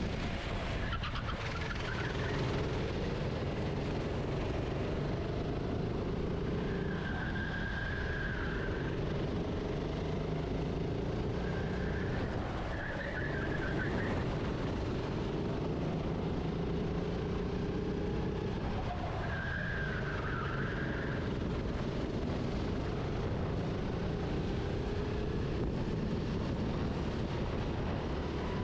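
Racing kart engine heard onboard, its pitch rising and falling as the throttle opens and lifts for corners on a slippery wet track. Brief high squeals come through a few times.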